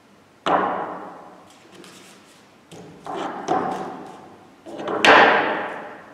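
Three knocks on a hollow wooden ramp, a couple of seconds apart, each ringing out for about a second, with lighter taps between, as cylinders and a thin wooden plank are set down at the top of the board.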